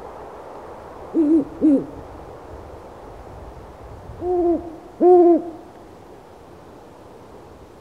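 Owl hooting: two short hoots in quick succession, then two longer hoots a few seconds later, over a steady soft background hiss.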